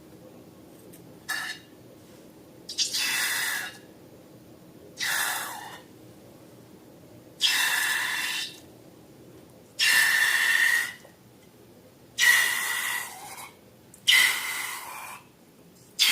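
Repeated short bursts of hissing air with a faint squeal in them, about one every two seconds, each starting suddenly and lasting about a second.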